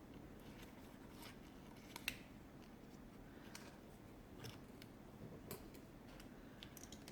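Faint handling sounds of thin wire and duct tape being worked by hand into a pull tab: a few scattered small clicks and snips, the sharpest about two seconds in.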